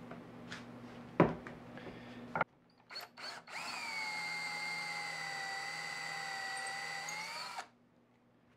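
Cordless drill running for about four seconds with a steady whine, boring a quarter-inch bolt hole through a metal drill guide into a wooden guitar neck heel. Before it come a few handling clicks and a sharp knock about a second in.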